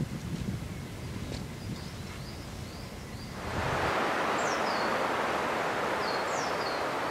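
Birds chirping over low wind rumble on the microphone. About a third of the way in it switches to a steady rushing hiss of wind in conifer trees, with two short falling bird calls.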